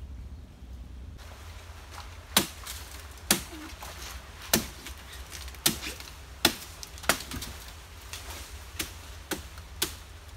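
Blade chopping into nipa palm frond stalks: about ten sharp, irregularly spaced strikes, the loudest in the first half.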